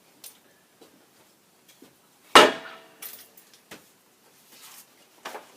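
Wooden strips being handled on a bench: a few light clicks, then one sharp, ringing knock about two seconds in, followed by a few smaller knocks.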